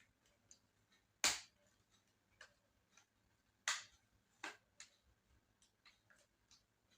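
Scattered sharp clicks and taps from hands working on an open laptop, two louder ones about a second in and a little past the middle, with a few fainter ticks between.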